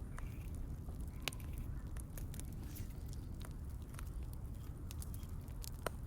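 Campfire crackling: sparse, irregular sharp pops over a low steady rumble, with a louder snap about a second in and another near the end.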